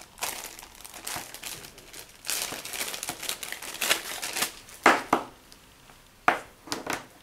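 Clear plastic bag crinkling and rustling as it is handled and the coiled air hose of a blood pressure monitor is taken out of it, with a few sharper crackles about five and six seconds in.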